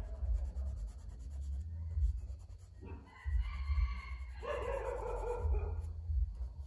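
Charcoal scratching on drawing paper, with a kitten mewing twice in the second half, the second mew longer and louder.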